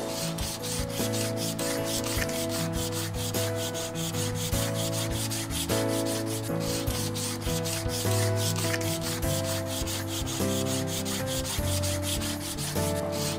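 Background music of held notes that change in steps, over a fast, scratchy, rasping rhythm.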